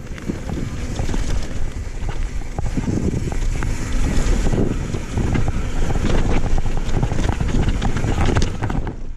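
Wind buffeting the microphone on a mountain bike descending a rough dirt singletrack, over a steady low rumble from the tyres and frequent knocks and rattles from the bike.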